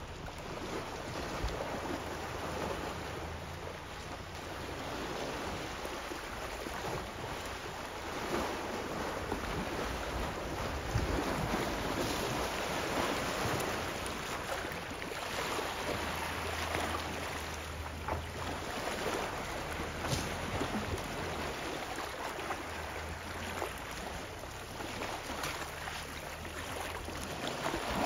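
Water sloshing and splashing as elephants roll and wallow in a muddy waterhole, with wind noise on the microphone.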